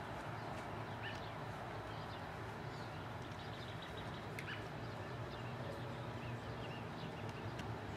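Outdoor background with a steady low hum and a few short bird chirps here and there.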